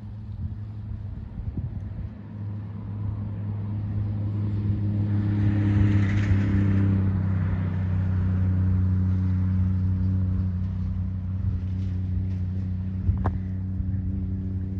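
Diesel cane-train locomotive's engine running at a steady pitch, growing louder over the first several seconds as it approaches, then holding. A hiss swells and fades around the middle, and there is one sharp knock near the end.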